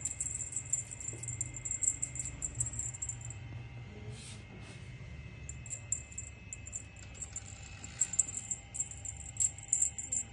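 Rapid, irregular jingling of a cat's feather wand toy as it is jiggled and batted about. It comes in two runs with a brief pause between, over a faint steady hum.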